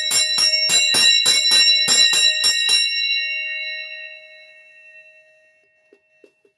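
Large handbell pitched at D sharp 5 rung rapidly, its clapper striking about four times a second for about three seconds. The bell then rings on and fades away.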